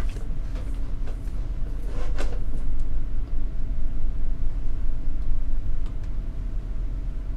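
Steady low hum and hiss of an open phone line while the call is being handed over to another person, with a few faint clicks in the first two or three seconds.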